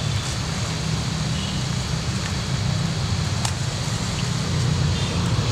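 Steady low rumble under an even hiss of outdoor noise, with a few faint ticks.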